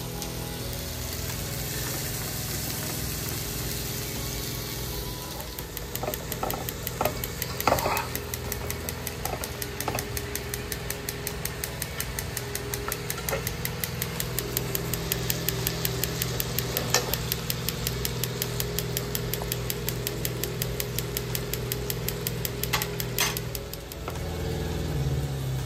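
A steady mechanical hum, with a fast even ticking running through it from about five seconds in, over beef slider patties frying in a skillet. A few sharp clicks and knocks of a utensil against the pan.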